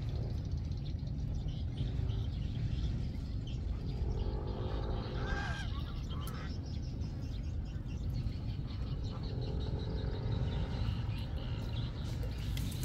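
Outdoor pond-side ambience: a steady low wind rumble on the microphone, with two faint, distant calls, one about four seconds in and one about nine seconds in.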